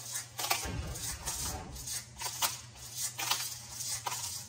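Disposable pepper grinder being twisted by hand, cracking peppercorns in a string of short gritty clicks, about two a second.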